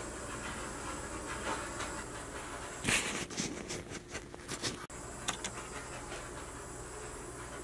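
Handheld torch hissing as it is passed over wet acrylic paint to pop air bubbles, with louder hissing and a few sharp clicks about three to five seconds in.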